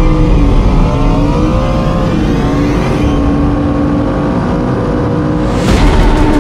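BMW S1000RR superbike's inline-four engine at high revs, its pitch rising and falling with throttle and gear changes. A sudden burst of broad noise comes near the end.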